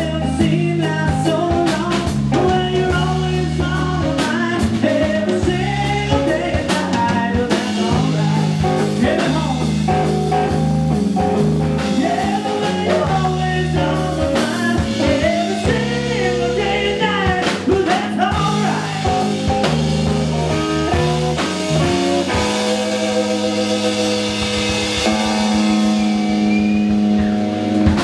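Live blues band of electric guitar, bass guitar and drum kit playing, with busy changing lead notes over a steady bass and drums. About 22 seconds in, it settles onto a long held final chord with cymbals ringing.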